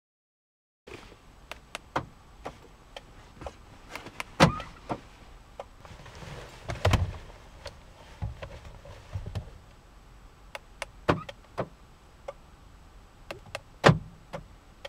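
Kia Soul's power door lock actuators clunking as they respond to lock and unlock signals from a KD900 remote maker in simulate mode. There are four louder thuds, about 4, 7, 11 and 14 seconds in, with many lighter clicks between them.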